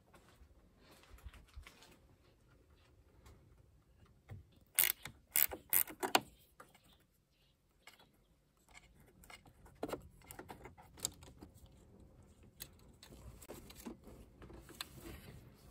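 Hand tools clicking and clinking on metal parts under a car's bonnet, with a quick run of sharp, loud clicks about five seconds in and lighter scattered clicks later.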